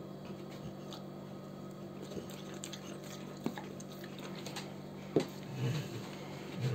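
Cane Corso's soft, wet mouth sounds as it noses, licks and smacks at a strawberry held to its muzzle, with a few small clicks about three and a half and five seconds in.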